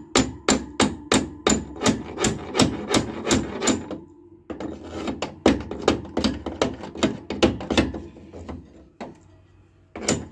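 A small hammer tapping steel rapidly, about three strikes a second, on the metal bars of a combine harvester grate as a long rod is worked through it. The strikes stop briefly about four seconds in, start again, then come sparser and lighter near the end.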